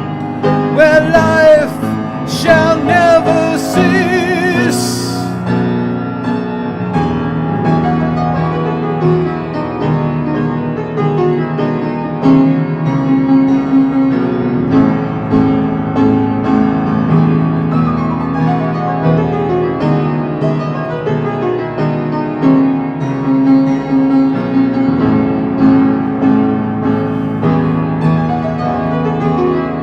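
Song music: a singing voice holds its last notes with vibrato for the first few seconds, then the piano or keyboard carries an instrumental passage of slow sustained chords.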